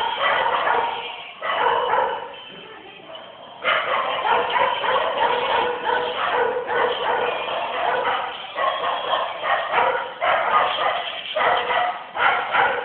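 Dog barking and yipping in quick repeated calls, with a quieter lull about two seconds in.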